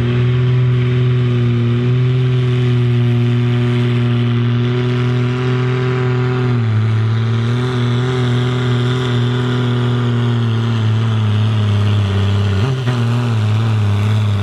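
Ford TW-25 tractor's turbocharged six-cylinder diesel running at full throttle while pulling the sled, under heavy load. The engine note drops in pitch about halfway through and dips briefly once more near the end.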